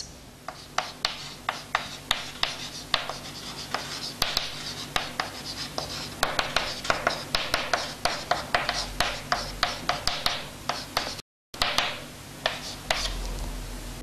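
Chalk writing on a blackboard: a rapid run of short taps and scratchy strokes as the chalk forms letters. The sound cuts out for a moment near the end.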